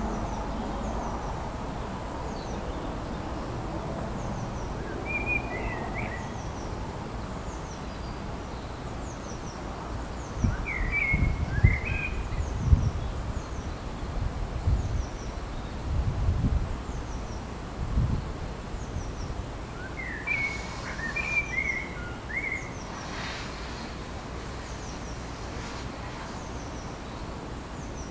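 Wild birds calling outdoors over a steady background hiss: three short phrases of chirping, about 5 s, 11 s and 21 s in, with fainter high chirps between them. Low rumbles come and go through the middle.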